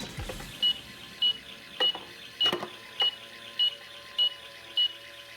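Toy microwave's electronic cooking sound effect: short high beeps repeating evenly about every 0.6 s, nine in all, as the pretend cooking timer runs.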